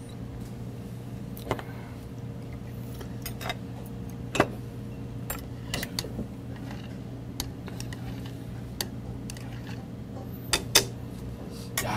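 Metal chopsticks clicking now and then against bowls and dishes, about a dozen light clicks with one louder one about four seconds in, over a steady low hum.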